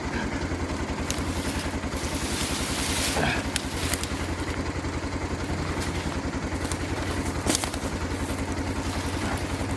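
Arctic Cat Prowler 550 utility vehicle's engine idling with an even low pulse, and a few sharp knocks and scrapes from a heavy chunk of wood being handled.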